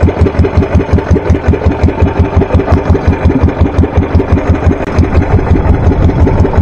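Small boat engine running steadily, with an even beat of about seven pulses a second.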